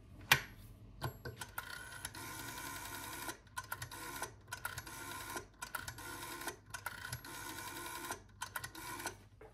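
Old rotary-dial telephone: a sharp clack as the handset is lifted, then a number dialled, the dial ratcheting round and whirring back with rapid clicks for one digit after another, with short pauses between digits.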